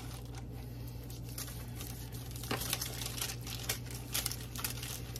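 Aluminium foil crinkling and rustling in irregular bursts as hands rub seasoning into raw chicken breasts on a foil-lined baking pan, over a steady low hum.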